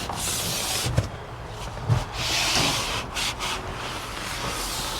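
Paper towels wiping and scrubbing wet truck window glass, in hissing strokes, the loudest about two seconds in, with a few light knocks.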